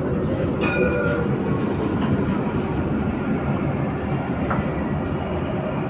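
Light-rail tram running, heard from inside the car: a steady rumble of wheels on rails with a faint high whine, and a brief light wheel squeal about a second in.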